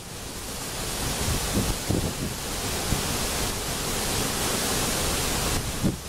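Steady rush of a large waterfall close by, swelling over the first second and then holding, with occasional low buffeting of wind on the microphone.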